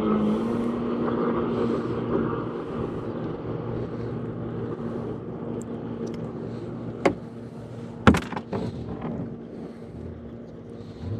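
A boat's motor running with a steady hum. Two sharp knocks come about seven and eight seconds in.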